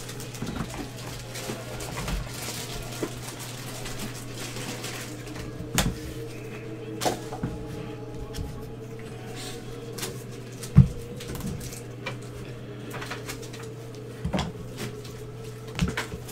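Plastic wrapper of a trading-card pack crinkling as gloved hands open it and handle the cards, with scattered sharp knocks of cards and packs set down on the table, the loudest a little past the middle. A steady low hum runs underneath.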